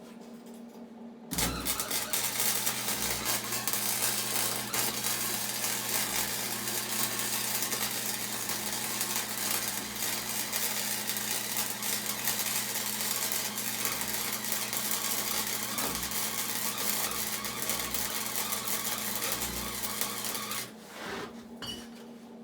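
Electric arc welder running a long weld: the arc strikes about a second in and crackles and sizzles steadily over a low mains buzz for nearly twenty seconds, then stops, with one short burst just after.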